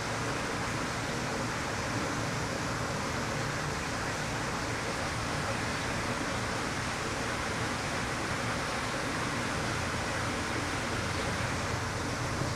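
Steady, even rushing background noise, with no distinct events and no voices standing out.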